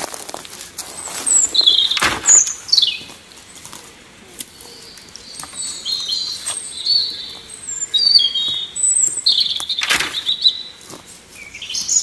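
Small birds chirping and singing in short, high notes throughout, with two sharp woody knocks, one about two seconds in and another about ten seconds in.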